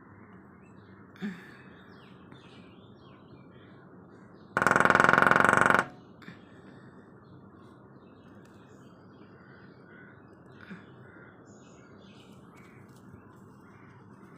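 Woodpecker drumming: one loud, rapid burst lasting about a second and a half, with faint chirps of other birds around it.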